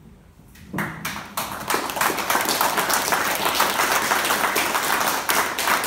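Audience applauding: clapping breaks out just under a second in, builds quickly and carries on steadily.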